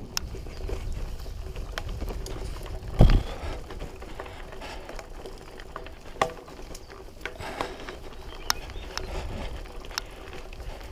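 Loaded mountain bike ridden up a rough, dusty track: a low rumble of tyres with scattered clicks and rattles, and one loud knock about three seconds in.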